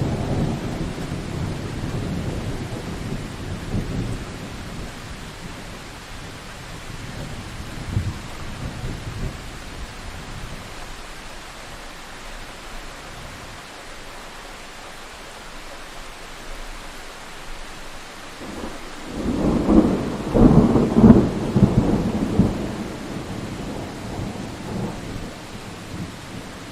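Thunderstorm: steady rain hiss with rolling thunder. One rumble fades over the first few seconds, and a much louder peal of thunder rolls for several seconds about two-thirds of the way through.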